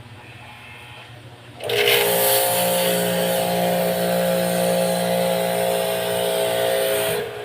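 Electric pressure washer starting up about two seconds in and running for about five seconds: a steady motor whine over the hiss of the water spray, then cutting off abruptly near the end.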